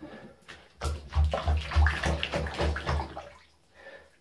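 Water being squeezed out of a wet cat's fur by hand and splashing into a bathtub: a quick run of wet splashes with soft low thumps, starting about a second in and lasting about two seconds.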